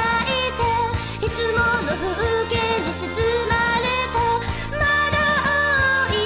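Japanese pop song: a female voice singing over a backing track with a steady beat.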